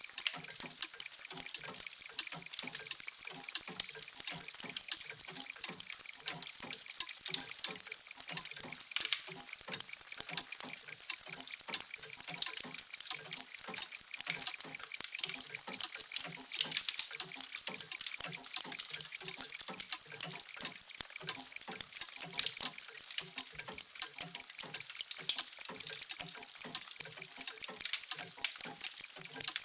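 Many mechanical clocks ticking at once, their ticks overlapping into a dense, steady clicking with no clear single beat.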